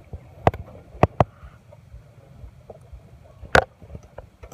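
A few short, sharp clicks and knocks, one of them loudest about three and a half seconds in, over a low rumble.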